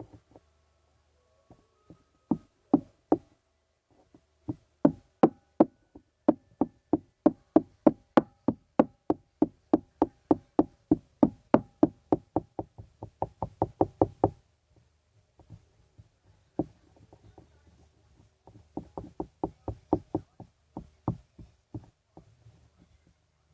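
A spoon knocking repeatedly against the side of a container while slime is being mixed: sharp taps, about three a second, speeding up before stopping, then a shorter run of taps near the end.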